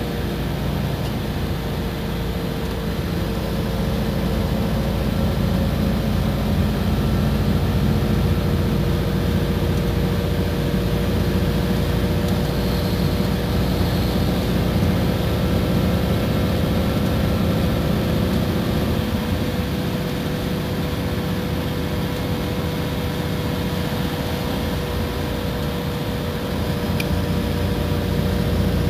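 Iveco Crossway bus engine running steadily: a constant low drone with a steady whine above it, growing slightly louder a few seconds in and again near the end.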